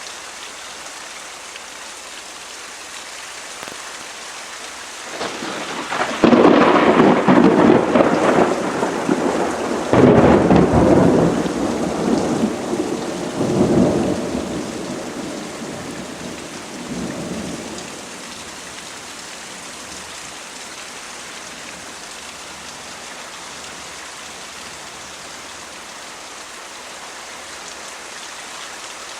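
Steady heavy rain with a long roll of thunder: it builds about five seconds in, cracks loudly twice, then rumbles away over several seconds, leaving the rain alone.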